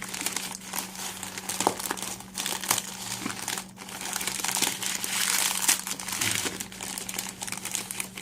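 Plastic snack packet of dry instant noodles crinkling and rustling as it is handled: a dense crackle with many sharp clicks, loudest around the middle.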